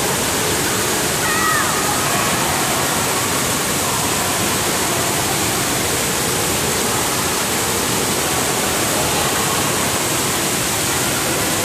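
Steady rush of water from a pool fountain spraying into the pool, with faint voices a couple of times.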